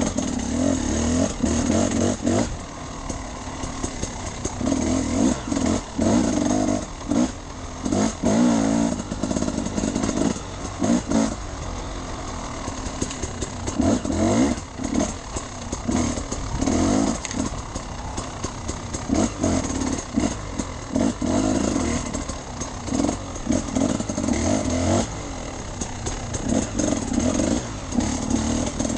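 Enduro dirt bike engine being ridden off-road, revving up and backing off in repeated short bursts.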